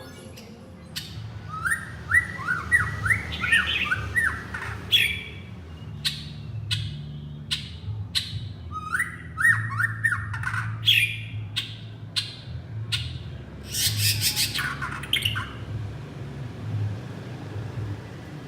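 Male white-rumped shama calling, two runs of quick sliding whistled notes about 8 seconds apart, with sharp ticks between and a high burst of notes near the end.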